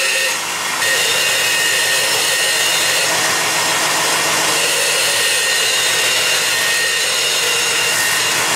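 Belt grinder running with a cold-rolled steel bar held against its spinning contact wheel, grinding and throwing sparks. It gives a steady hiss with high whining tones, dipping briefly about half a second in.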